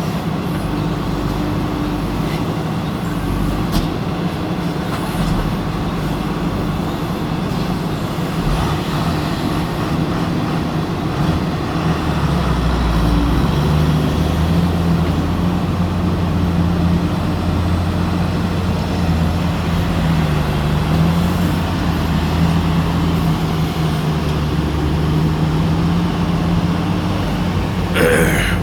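Diesel engine of a JCB backhoe loader running steadily, its pitch rising about halfway through and holding higher as it is worked harder. A short sharp sound near the end.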